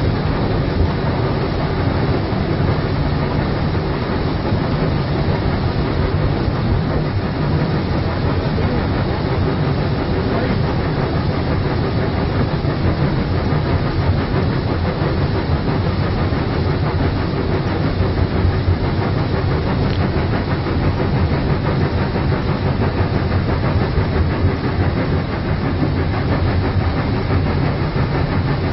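Loud, steady running noise of a GMA/M Beyer-Garratt steam locomotive under way, heard from inside its cab: the engine and wheels rumbling on the track with no break.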